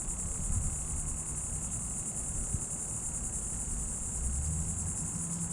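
Steady, high-pitched insect chorus with a fine pulsing trill, over a low rumble.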